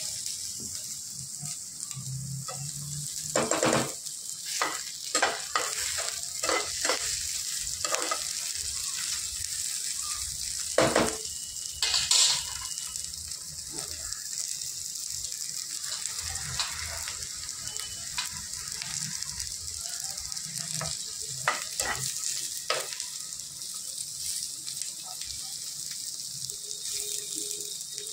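Food sizzling in hot oil in a pan: a steady hiss, with a spoon scraping and knocking against the pan every few seconds. The loudest knocks come about eleven to twelve seconds in.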